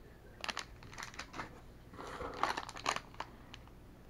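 Clear plastic bags crinkling and rustling as they are handled and squeezed, in a few short irregular spells of crackling, the busiest between about two and three seconds in.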